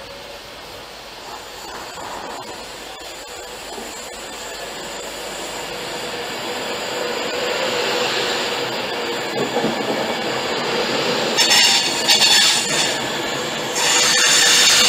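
Class 390 Pendolino electric train running slowly into the platform, growing louder as it comes alongside, with a steady whine. Near the end a high-pitched squeal comes in short bursts and then holds, typical of the train braking to a stop.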